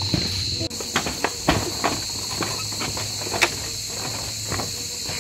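Steady high chorus of night insects, with irregular footsteps knocking on a bamboo-slat footbridge, the loudest step about three and a half seconds in.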